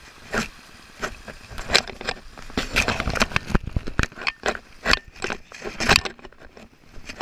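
A rapid, irregular series of crunches and scrapes, several a second, thinning out after about six seconds.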